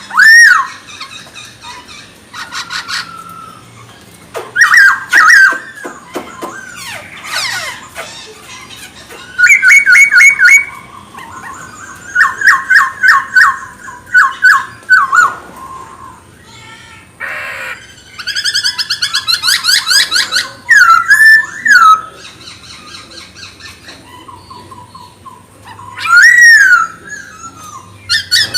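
Poksay Hongkong (black-throated laughingthrush) singing a loud, varied song: phrases of fast repeated whistled notes, trills and sweeping whistles, each a second or two long with short pauses between.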